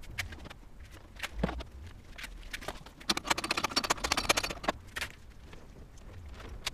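A bundle of loose vehicle wiring being handled, with scattered clicks and rustles. About three seconds in comes a rapid run of clicks, the loudest part, lasting about a second and a half.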